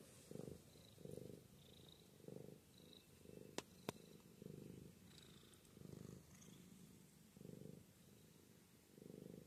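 Domestic cat purring softly and steadily, swelling and easing with each breath: a content cat being petted. Two sharp clicks come close together a little after three and a half seconds in.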